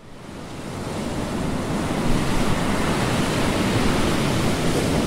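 Steady rush of ocean surf, fading in from silence over the first second or two.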